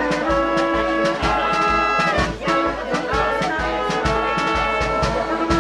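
Small band of trumpet, trombone and accordion playing a tune with held brass notes over a steady beat of about two low pulses a second.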